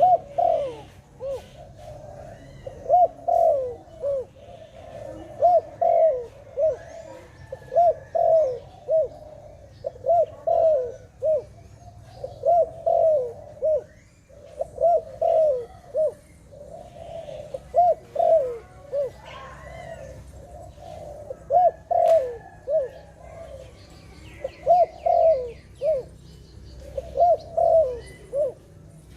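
A dove cooing: phrases of three or four short, arched coo notes, repeated about every two and a half seconds. Faint chirps from other small birds sit behind it.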